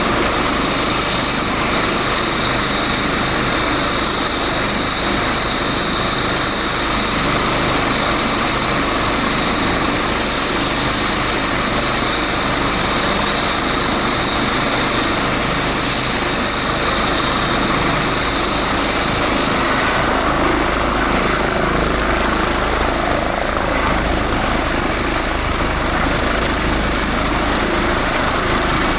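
Eurocopter EC135 twin-turbine helicopter running steadily, with rotor noise and turbine whine. About twenty seconds in, a thin high whine rises a little and then holds.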